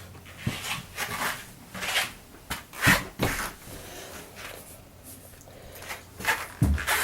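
Scattered soft thuds and rustles of a person walking on a floor in a small room, irregular and about half a second to a second apart, with pauses between.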